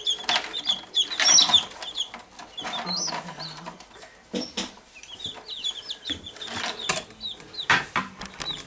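Newly hatched domestic chicken chicks peeping in an open incubator: a steady stream of short, high, falling cheeps from many chicks at once. A few knocks and rustles of handling break in, the loudest about a second in and again near the end.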